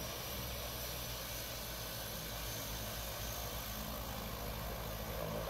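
Seaplane engine drone, steady and unchanging.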